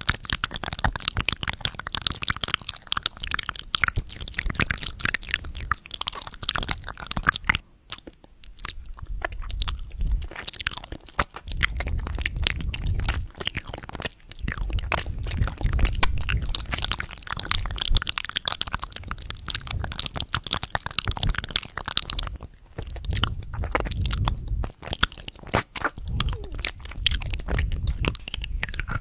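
Close-miked ASMR eating of a toothbrush candy: a dense run of crisp crunches and wet chewing clicks, with stretches of low thuds from the mouth and a short lull about eight seconds in.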